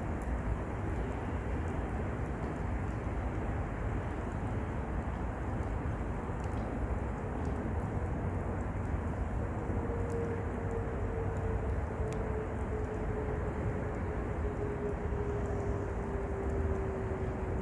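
Wood fire burning in a mesh fire pit, with a few faint crackles over a steady low rumble. A faint drone comes in about halfway and slowly falls in pitch.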